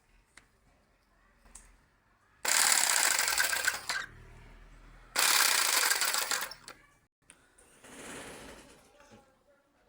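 A power tool with a fast rattling action runs in two bursts of about a second and a half each, with a fainter, shorter run near the end.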